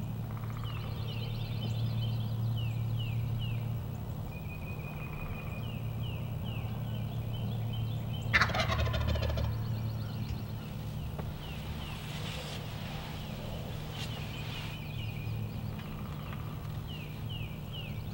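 Wild turkey gobbler gobbling once, a loud rattling call about eight seconds in, while it struts in full display.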